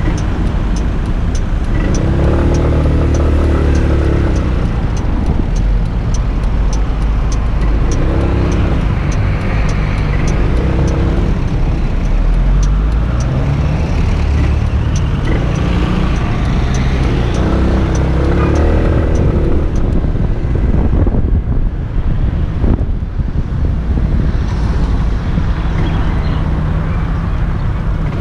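Kymco Xciting 250i scooter's single-cylinder engine under way, its note rising and falling with the throttle several times over wind and road noise. It eases off about twenty-one seconds in, then picks up again. A regular faint ticking runs through the first twenty seconds.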